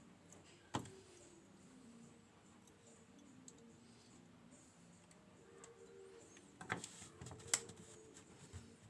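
A few sharp metallic clicks and taps, one about a second in and two close together near the end, over a faint background: small metal parts of a dimple euro cylinder lock being handled as it is taken apart.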